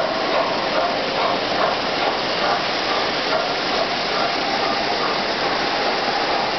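MTH and Lionel O-gauge model trains running on three-rail track: a steady rolling rumble of metal wheels on the rails, with a light repeating clatter.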